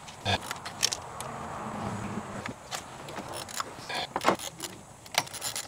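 Irregular metallic clicks and clinks of a 12 mm wrench loosening and backing out the two bolts that hold a Duramax fuel filter housing, with some scraping noise in the first half.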